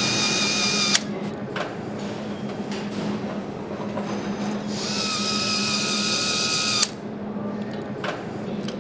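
Handheld right-angle power screwdriver whining as it runs bolts into a motorcycle engine crankcase: one run stops about a second in and a second run of about two seconds starts around five seconds in, each cutting off sharply with a click. A steady low hum lies underneath, with light knocks between the runs.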